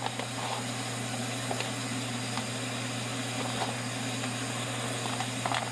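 A pot of beans in seasoned water boiling on the stovetop: a steady hiss with a low hum underneath.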